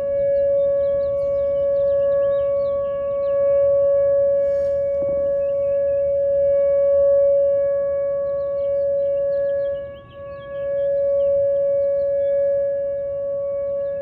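Outdoor tornado warning siren sounding a steady tone on one held pitch, its loudness swelling and dipping briefly about ten seconds in. Small birds chirp faintly behind it.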